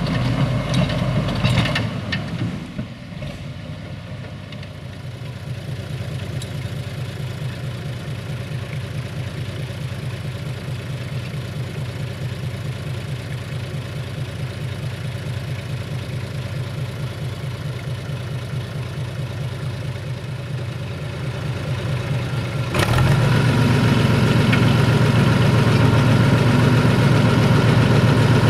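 SAME Laser 110 tractor's diesel engine running steadily at low revs, with an even pulsing beat. About 23 seconds in it suddenly becomes much louder and closer. A few sharp clicks come near the start.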